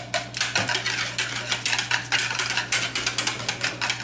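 A metal utensil beating food briskly in a plastic bowl, with quick scraping strokes against the bowl's sides several times a second.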